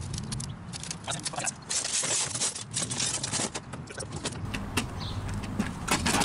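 Clattering and rattling of a flatscreen TV's sheet-metal chassis and plastic parts being handled and pulled apart, a dense run of clicks and knocks with loose metal bits jingling.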